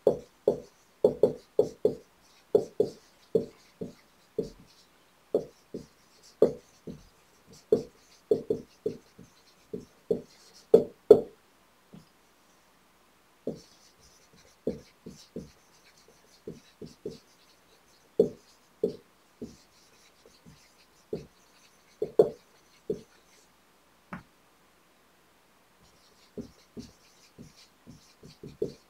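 Dry-erase marker writing on a whiteboard: a run of short squeaking strokes, each word a quick cluster of them, with two pauses of a second or two between lines.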